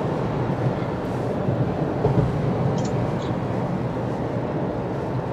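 Steady rumble of a vehicle driving, heard from inside the cab: road and engine noise.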